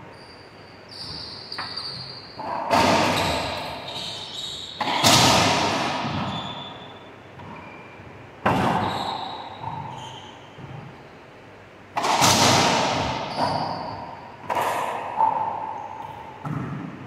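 Racquetball rally: the ball cracks off racquets and the court walls about half a dozen times, each hit ringing out with a long echo in the enclosed court. Short high squeaks of sneakers on the hardwood floor come between the hits.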